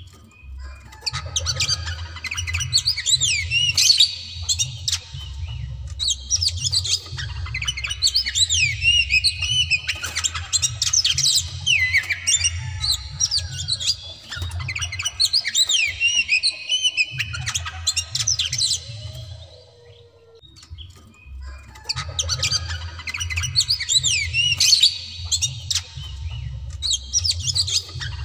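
Oriental magpie-robin (white-breasted kacer) singing long, fast phrases of rising and falling whistled notes, with a brief pause about twenty seconds in. This is the excited, aggressive song of a bird fired up to fight. A steady low hum runs underneath.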